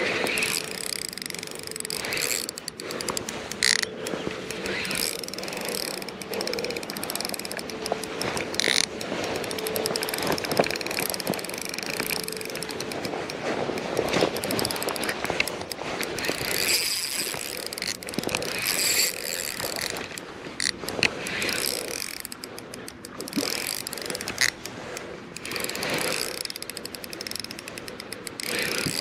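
Spinning reel ticking and clicking as it is wound in to play a hooked zander, with stretches of rapid ticks.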